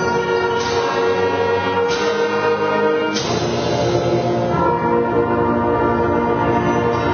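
Junior high concert band playing: brass and woodwinds hold sustained chords, with three sharp hits in the first three and a half seconds, after which the sound fills out lower down.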